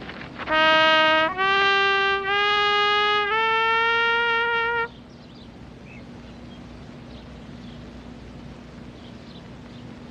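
Solo trumpet playing a slow phrase of four held notes that climb in pitch, stopping abruptly about five seconds in. After that only a faint steady hum remains.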